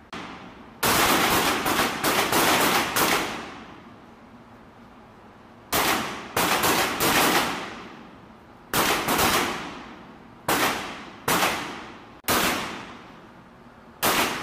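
Pistol shots on an indoor firing range, each with a ringing echo off the range walls. A quick string of shots comes about a second in, another string around six seconds, then shots spaced about a second apart through the rest.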